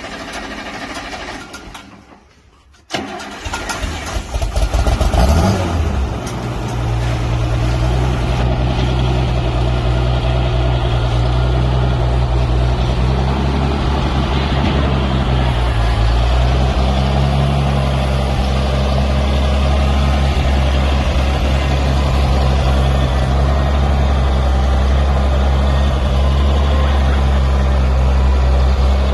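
International 656 Hydro tractor's six-cylinder gas engine starting about three seconds in, revving briefly, then running steadily.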